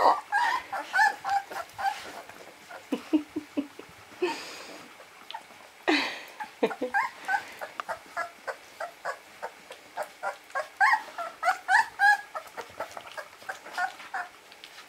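Young puppies squeaking and whimpering in many short, high chirps in quick succession, with a couple of brief breathy noises about four and six seconds in.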